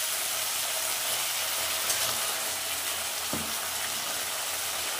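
Sliced onions frying in hot oil in a kadai, a steady sizzle, with a light knock about three seconds in.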